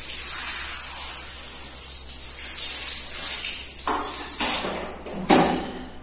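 Water from a handheld shower head spraying onto wet hair, a steady hiss with splashing. Near the end there is a sharp knock and the spray dies away.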